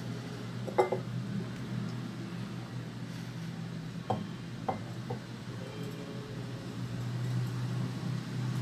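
Tableware clinking a few times: one ringing clink about a second in, then three shorter clinks around four to five seconds. A steady low hum runs beneath.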